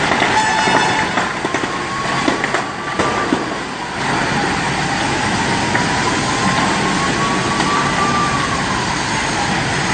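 A siren wailing, its pitch rising and falling slowly, over a steady rushing noise.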